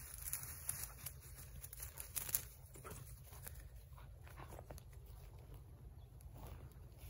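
Rustling of dry grass and weeds with irregular footsteps, loudest in the first two and a half seconds, over a low steady rumble.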